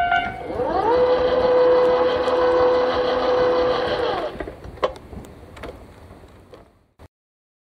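Level crossing warning bell cutting off, followed by the crossing barrier's motor whining up to speed, running steadily for about three seconds and winding down as the gate arms rise, with a single knock as they stop.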